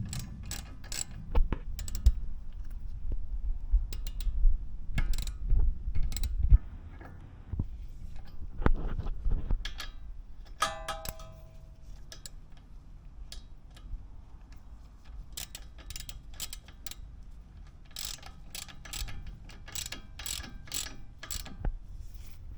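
Hand tools working on car front-suspension parts: a ratchet wrench clicking with irregular metal clinks and knocks, and a short metallic ring near the middle.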